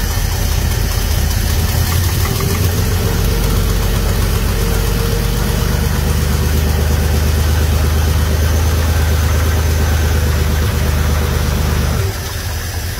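Carbureted truck engine running on a cold start with its choke cable fallen off, unsteady and not very happy. About twelve seconds in its note drops and it gets quieter.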